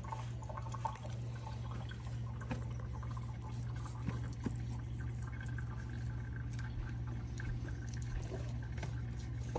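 Soft, faint wet dabbing and small ticks of melted butter being basted onto a puff-pastry pie top, over a steady low electrical hum.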